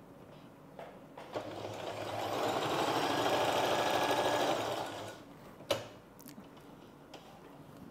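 A sewing machine stitches a seam for about four seconds, speeding up and then slowing to a stop. A single sharp click follows.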